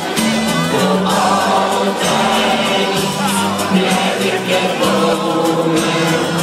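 A crowd of football supporters singing a Dutch party song together over music, without a break.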